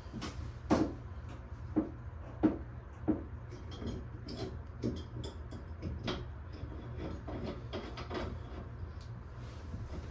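Irregular knocks and clicks from hand tools and parts being handled at a shower mixing valve, over a steady low hum. The four loudest knocks come in the first few seconds, with lighter clicks after.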